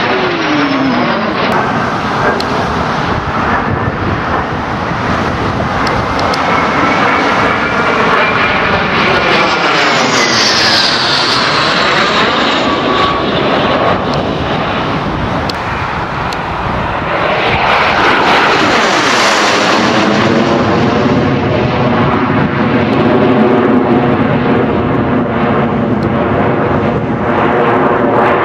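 Gloster Meteor's twin jet engines as the aircraft flies a display pass: continuous loud jet noise, with a high whine that falls in pitch as it goes by about ten seconds in, and the noise swelling again from about seventeen seconds in.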